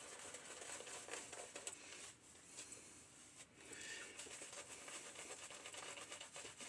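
1895 Star lather catcher safety razor with a Gem single-edge blade scraping through lather and stubble, a faint run of short scratchy strokes with brief pauses.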